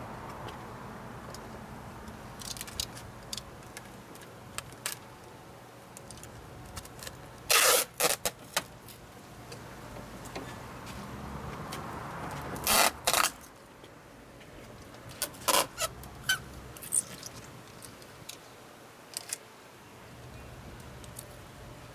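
Clear adhesive tape pulled off its roll in short, loud rips, the loudest about eight and thirteen seconds in. Light clicks and handling noise fall between the rips.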